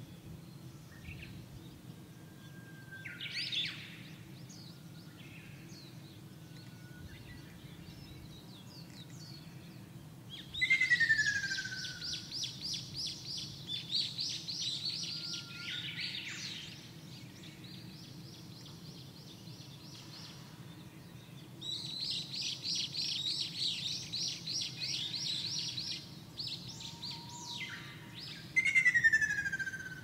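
Ruddy kingfisher singing, a loud falling call about ten seconds in and again near the end. Between them another bird sings long, fast runs of high repeated notes, over a steady low background hum.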